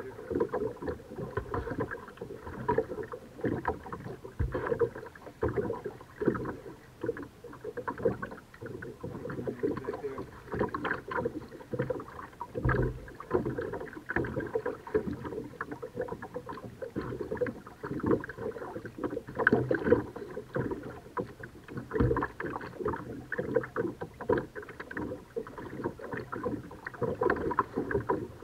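Kayak paddle strokes splashing in the water, one after another, with water sloshing against the hull.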